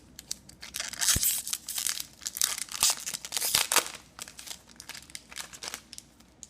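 A foil trading-card pack wrapper being torn open and crinkled, with a dense crackle for about three seconds, then lighter rustling and clicks as the cards are handled.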